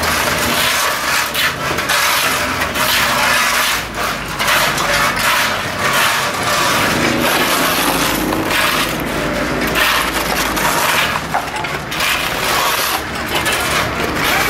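Several shovels scraping and digging into mud, gravel and stones on a street surface, in many irregular overlapping strokes.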